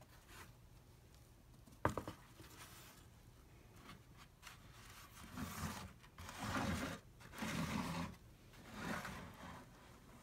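A sharp knock about two seconds in. Then four rubbing, scraping swells as a hand brushes around the inside and walls of an old cardboard hat box.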